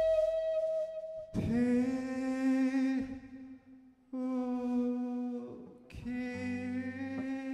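Live rock band playing slow held notes, each ringing out for a second or more, with a short near-silent gap partway through and bass notes coming in near the end.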